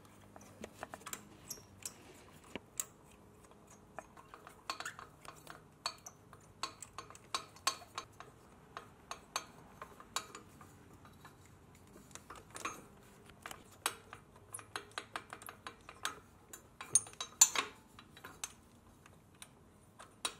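Socket ratchet wrench clicking in short irregular runs, with light metal clinks, as the exhaust header bolts are undone.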